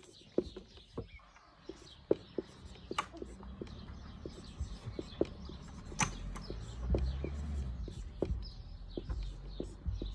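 Marker pen writing on a whiteboard: a string of short, irregular taps and scratches as words are written out. A low rumble runs underneath, building from about two seconds in and strongest around seven seconds.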